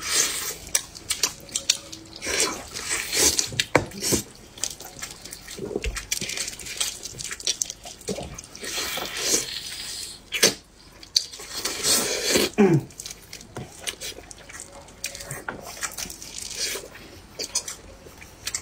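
Wet eating sounds of braised beef ribs being eaten off the bone: irregular chewing, lip smacks and slurps, with the bone end sucked on.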